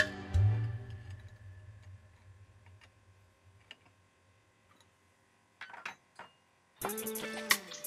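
Background music: a low bass note dies away, a near-silent pause with a few soft ticks follows, and the music comes back in with a struck chord near the end.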